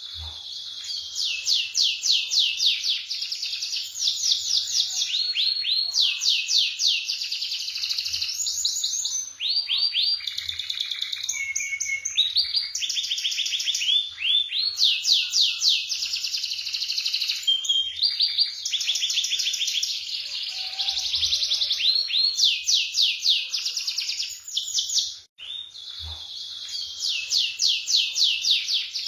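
Domestic canary singing almost without pause: long rolling trills of rapidly repeated high notes, shifting in speed and pitch every few seconds, with a brief break about 25 seconds in.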